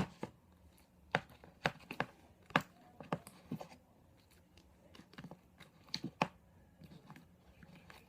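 Sticky, freshly activated slime being worked and pulled free of the bowl, giving irregular sharp pops and crackles, with a lull around the middle.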